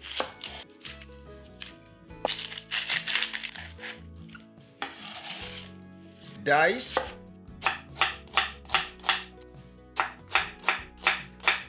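Chef's knife working a peeled onion on a wooden cutting board: scattered knocks and rustling as the onion is trimmed and peeled, then from a little past halfway regular slicing strokes onto the board, about three a second.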